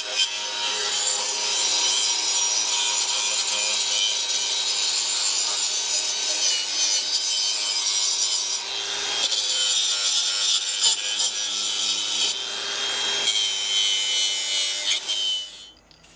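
Power tool running steadily and scrubbing the surface of axle insulator plates to clean them for paint, with a steady whine over the scraping. The sound shifts briefly twice, then stops abruptly shortly before the end.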